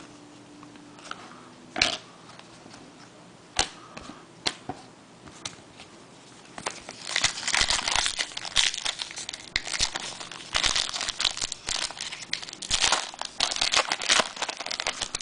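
A few separate clicks and taps of cards being handled, then from about seven seconds in, dense crinkling and tearing of a trading-card pack wrapper being ripped open.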